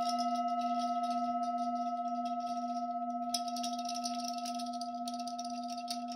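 A bell rings on after being struck, several steady overtones slowly fading with a slight pulsing waver. A shaker rattles alongside it, growing busier again about three seconds in.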